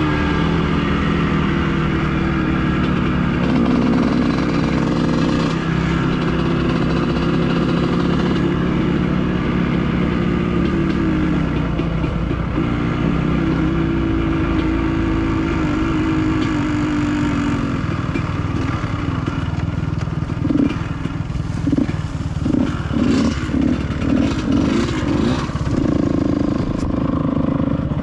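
Dirt bike engine running while riding a trail, its pitch rising and falling with the throttle. Late on it turns into a run of short on-off throttle surges, roughly one or two a second.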